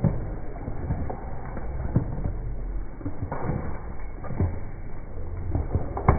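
A horse's hooves knocking dully and irregularly on a wet road, over a low steady rumble; the loudest knock comes near the end.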